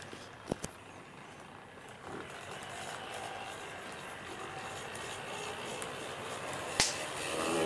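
HO-scale model train running on the track: a steady rolling noise that slowly grows louder, with a couple of sharp clicks about half a second in and another near the end.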